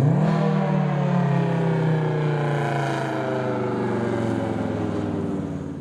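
Whelen 2810 electronic warning siren sounding a long, loud tone with many overtones that slides slowly down in pitch and begins to fade near the end: the tone heard during the siren's weekly test, before its recorded voice message.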